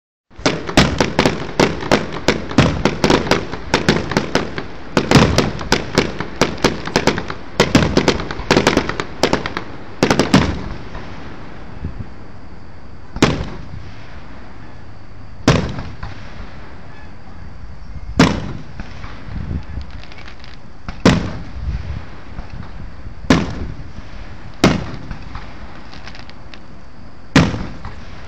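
Aerial fireworks going off. For the first ten seconds there is a rapid volley of many overlapping bangs, then single shell bursts come every two to three seconds.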